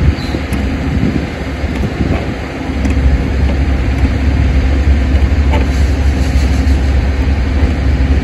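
Steady low rumble of road traffic, easing briefly about two seconds in, with a few faint clicks over it.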